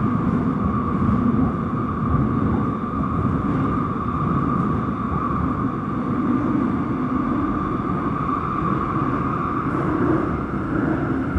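A Seoul Subway Line 5 train running through a tunnel, heard from inside the passenger car: a loud, steady rumble of the wheels on the rails with a constant higher hum over it.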